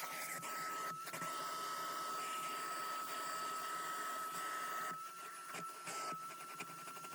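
A vacuum motor running steadily with a high whine over a rushing hiss, a little quieter from about five seconds in.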